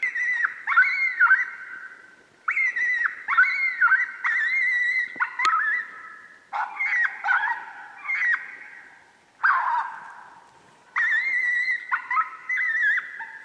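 Coyotes yipping and howling: several overlapping wavering, falling calls in bursts separated by short pauses.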